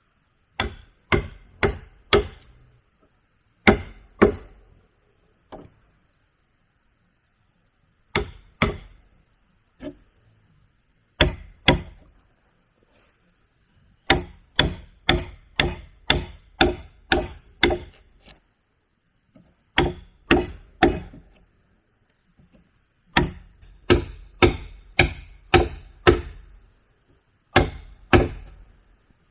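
Wood being chopped with a hand tool: sharp strokes about two a second, in runs of two to eight with short pauses between.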